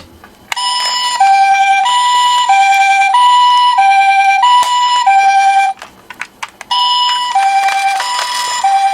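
Toy ambulance's electronic two-tone siren, alternating between a high and a low note about every half second in the Japanese 'pee-po' ambulance pattern. It breaks off for about a second partway through, with a few clicks in the gap, then starts again.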